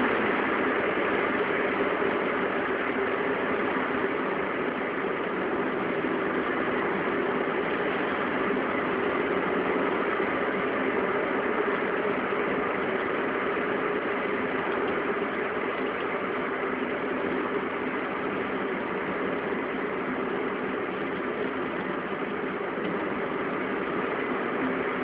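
Steady running noise from a vehicle with a faint constant hum in it: the abnormal noise from a wheel hub, typical of a worn hub bearing.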